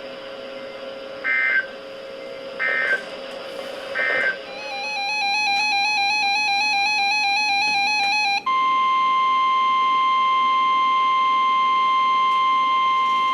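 NOAA Weather Radio alert tones: three short bursts of SAME digital data tones about a second and a half apart, the end-of-message code closing the tornado warning. A few seconds of buzzy warbling electronic alert tone follow. From about eight seconds in comes the steady 1050 Hz warning alarm tone that announces the next warning.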